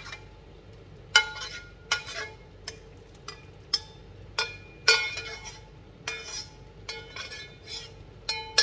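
Metal skimmer scraping and knocking against the inside of a steel wok as the last of the sauce is scraped out: well over a dozen sharp ringing clinks and scrapes, one or two a second, the loudest about a second in and about five seconds in.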